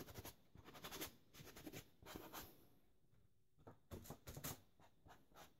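Faint soft taps and rubs of a foam sponge dabbing paint onto a canvas sneaker, in several short clusters with a quiet gap around the middle.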